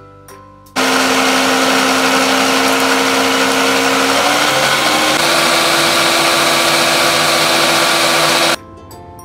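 Food processor motor running at full speed, blending raw chicken, ice cubes and egg into a paste. It starts abruptly about a second in, its pitch steps up slightly about halfway, and it cuts off suddenly near the end.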